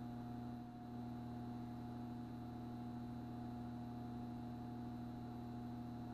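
Steady low electrical hum with a faint high whine above it.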